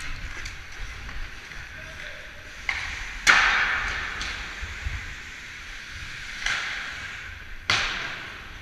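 Ice hockey skate blades hissing and scraping on the ice, with four sharp scrapes. The loudest comes about a third of the way in, and each fades out over about a second.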